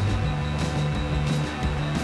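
Background music with a steady beat, laid over a time-lapse.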